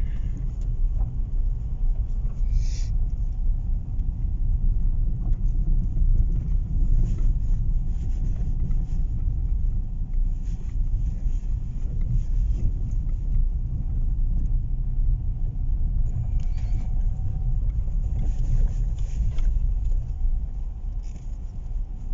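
Car driving along: a steady low rumble of engine and tyres, with a few faint ticks now and then.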